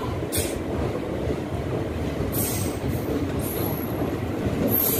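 Passenger express train running through a station without stopping, heard from on board: a steady rumble and rattle of the coaches on the rails. Several brief high-pitched squeals recur about once a second.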